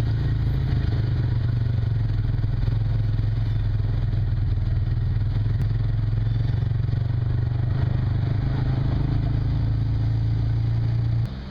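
An engine running steadily with a low, even hum; it cuts off abruptly near the end.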